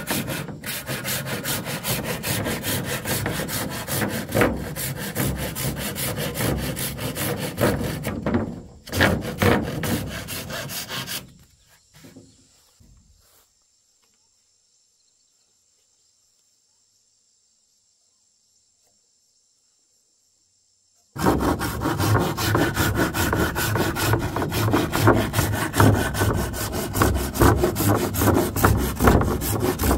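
Handsaw cutting through a wooden board in rapid, rhythmic strokes. The sawing stops after about eleven seconds, there are about seven seconds of near silence, then sawing starts again and runs on.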